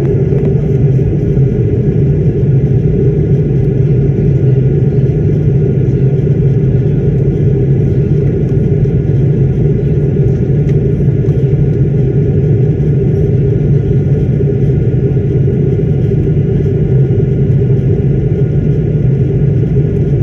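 Airliner cabin noise: a loud, steady drone of engines and rushing air heard from a passenger seat, with no change in pitch or level.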